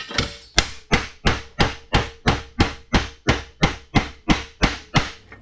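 Hammer blows on a steel frame horn, about three strikes a second in a steady run of some fifteen, each leaving a short metallic ring; the part is being hammered to take out a twist.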